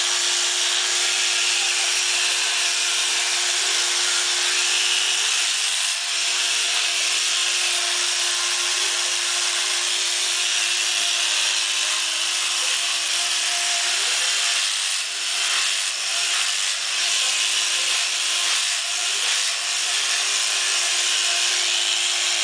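Corded electric dog clippers running steadily while clipping a cocker spaniel's coat, a constant motor buzz over a hiss, the hum wavering briefly a few times as the blade works through the fur.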